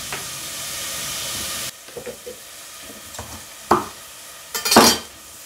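Chopped onion frying in olive oil in a pot, a steady sizzling hiss that cuts off abruptly about a second and a half in. Then a few light knocks on the wooden cutting board and a short, louder scraping rush near the end.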